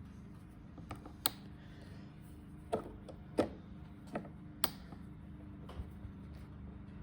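Scattered sharp clicks, about six in all and irregularly spaced, as a screw extractor is turned to work a broken bolt out of a YZ250 dirt bike's subframe, over a steady low hum.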